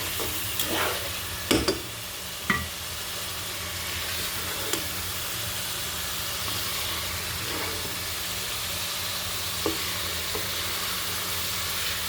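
Food sizzling steadily in hot oil in a cooking pan, with a few sharp knocks of a utensil against the pan in the first few seconds and one more later.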